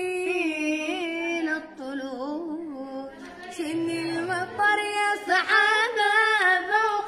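Two boys singing a Yemeni song unaccompanied, one after the other, in long, ornamented held notes. The second voice comes in past the middle and is louder.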